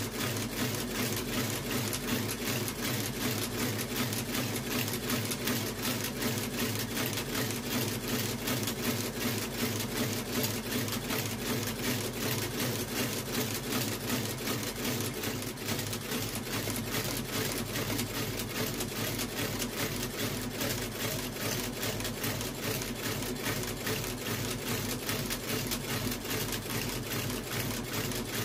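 Industrial sole-stitching machine running steadily, its needle stitching in a fast, even rhythm over a steady motor hum as a leather outsole is stitched to the welt of a shoe.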